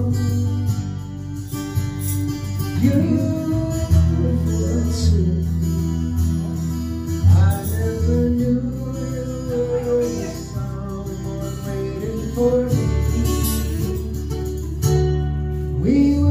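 A song sung with acoustic guitar accompaniment: a voice singing over strummed and plucked guitar with sustained bass notes.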